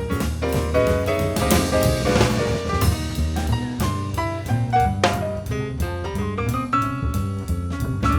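Instrumental jazz background music with drum kit and piano, at a steady beat.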